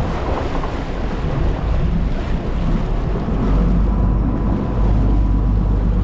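Wind buffeting the microphone over the steady low drone of the sportfishing boat's engine and the sea around the hull.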